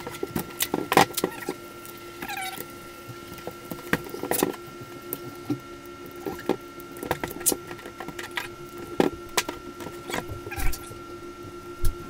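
Duct tape being handled and folded onto itself: irregular crinkles, taps and sticky crackles, with a few short scrapes, over a steady hum.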